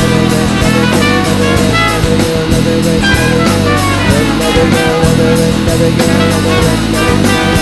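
Loud instrumental band music with a steady drum beat of about four a second under held notes, jazz-like with horns; no singing.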